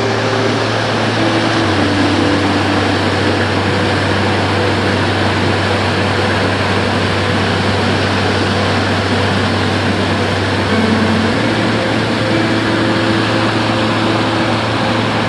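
Water rushing steadily through a weir's sluice, a loud, even rush of white water.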